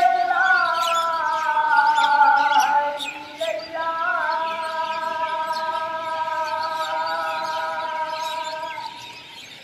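A muezzin sings the Maghrib azan (Islamic call to prayer) in two long, drawn-out phrases. The first ends about 3 seconds in; the second starts a moment later with a small turn of the voice and is held until near the end. Birds chirp throughout.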